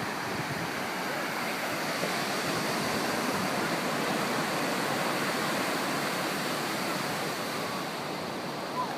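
Ocean surf washing steadily on the shore, a continuous even rush of breaking waves.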